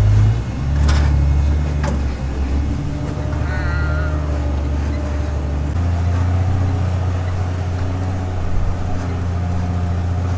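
Off-road vehicle engine running steadily at low speed while crawling along a rocky canyon trail, a low drone whose note changes about halfway through. Two sharp knocks about one and two seconds in.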